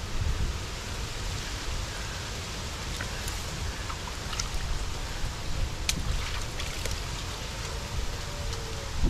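Steady hiss of water, over a low uneven rumble, with a few faint clicks.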